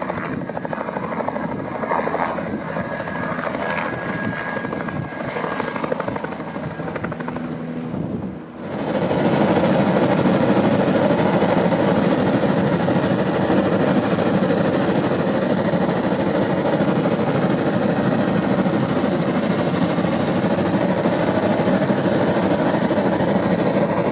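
Sightseeing helicopter's engine and rotor running steadily. About eight seconds in the sound dips briefly, then comes back louder and evener.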